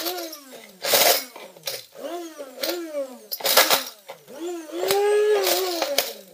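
Hand blender run in short pulses in dry cereal in a plastic container: the motor whine rises and falls with each pulse, about once a second, with one longer held run near the end, and the cereal rattles and crunches against the plastic in bursts.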